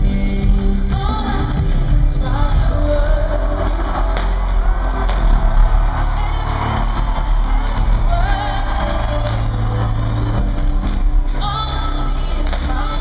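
Hip-hop song played live at a concert: deep sustained bass notes under a sung melody, with shouts from the crowd.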